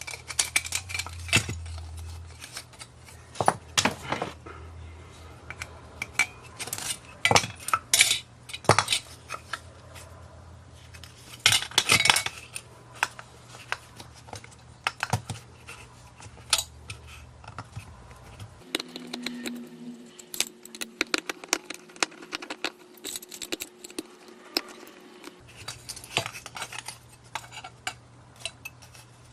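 Clicks, clinks and knocks of small plastic and metal parts of a mini massager being handled and taken apart, with a steady hum lasting about six seconds in the second half.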